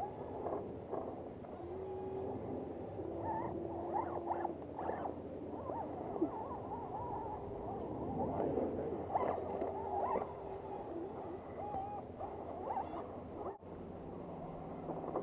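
Electric motors and gear drivetrains of Axial SCX10 scale RC rock crawlers whining as they creep over rock, the pitch wavering up and down with the throttle, with a few short held tones.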